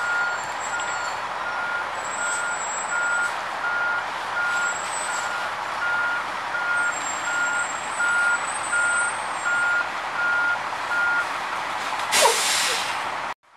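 A fire engine's back-up alarm beeps at an even pace at one pitch over its running engine as the engine reverses, and the beeping stops about eleven seconds in. Near the end comes a short, loud burst of hiss.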